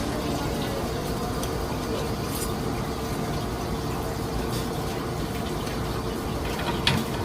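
Water running steadily with an even rushing sound, a short sharp click just before the end.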